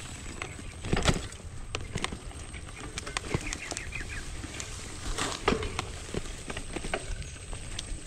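Polygon Bend R2 gravel bike rattling over a rough dirt track: irregular clicks and knocks from the bike over a low, steady rolling noise.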